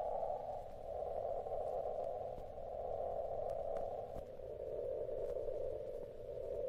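Computer-synthesized electronic music: a narrow band of hissing, noise-like tone in the middle register, wavering in loudness and stepping slightly lower in pitch about four seconds in.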